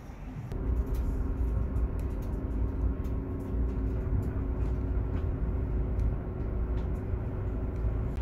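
Steady low rumble of a running vehicle, with a faint steady hum over it, starting about half a second in.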